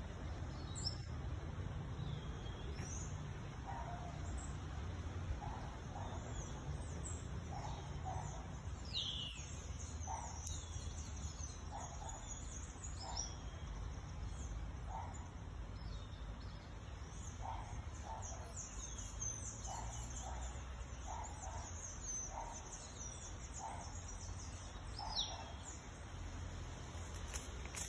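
Wild birds calling: many short high chirps, a few quick falling whistles, and a short lower note repeated roughly once a second. A steady low rumble runs underneath.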